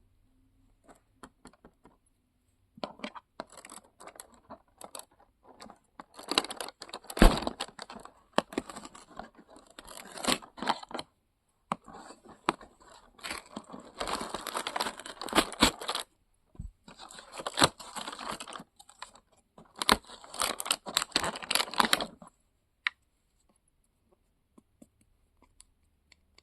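An advent calendar door being torn open and the rubber duck inside unwrapped: bursts of tearing and crinkling packaging mixed with sharp taps and clicks. The sounds stop a few seconds before the end.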